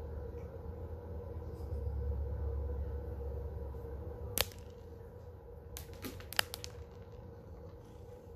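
A few sharp clicks on a tile floor as a kitten plays with dry cat food: one about four seconds in, then a quick run of three or four about two seconds later, over a steady low room hum.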